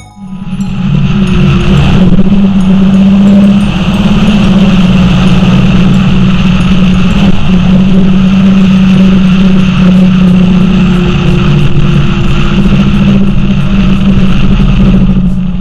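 John Deere tractor's diesel engine running steadily as the tractor drives along a road, heard close up beside its exhaust stack.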